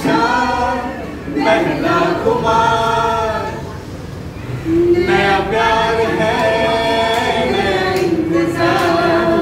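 A group of voices singing together in long held phrases with short breaks between them.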